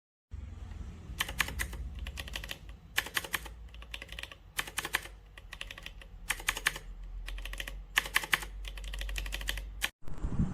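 Typing on a mechanical keyboard fitted with pre-lubed Gateron Pro 2.0 switches: short flurries of quick keystroke clicks, about one flurry every second and a half, over a low steady hum. The sound cuts off abruptly near the end.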